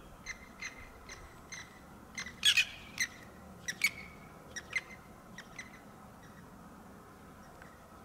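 Birds calling: a dozen or so short, sharp calls in an irregular run, loudest a couple of seconds in, thinning out near the end.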